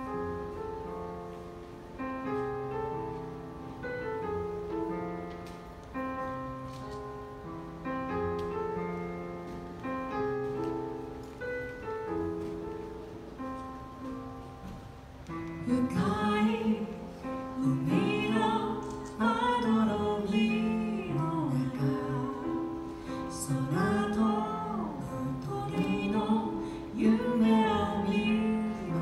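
Live stage piano playing slow, sustained chords as a gentle introduction, about every two seconds a new chord; about halfway through a woman's singing voice comes in over the accompaniment and carries a slow melody.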